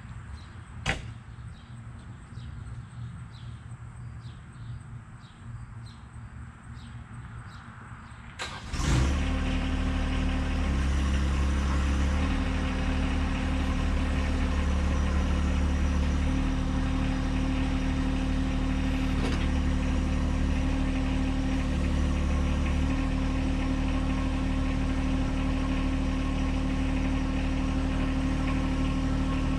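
The John Deere 2025R compact tractor's three-cylinder diesel engine starts about eight seconds in, then idles steadily with small changes in engine speed. Before it starts there is faint chirping and a single click.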